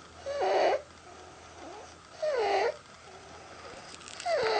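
Stridor: a person's noisy breathing, a harsh, pitched, crowing noise about half a second long on each breath, coming about every two seconds with fainter breath sounds between. It is the sign of a narrowed upper airway.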